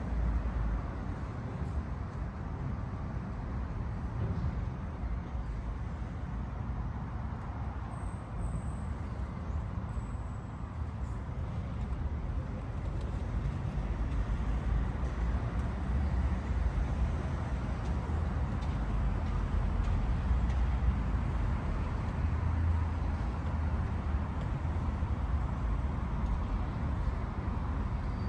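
City traffic ambience: a steady low rumble of road vehicles passing.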